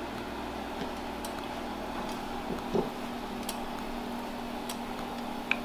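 Steady low electrical hum from a portable cooktop heating a pan of pancake batter, with a few faint ticks and one soft knock about three seconds in.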